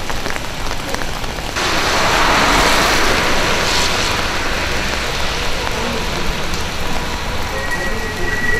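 Rain falling on a wet street, a steady hiss that gets louder for a few seconds from about a second and a half in.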